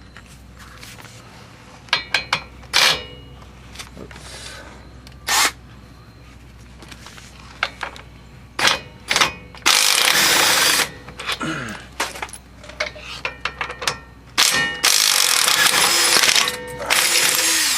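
Metal tool clinks, then two bursts of an impact wrench, each a second or two long, loosening the 18 mm brake caliper bracket bolts.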